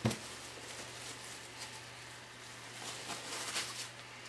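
Plastic wrap crinkling and rustling faintly under gloved hands as a stuffed pork tenderloin is rolled up on it, with a light knock at the start and a few louder rustles about three seconds in, over a low steady hum.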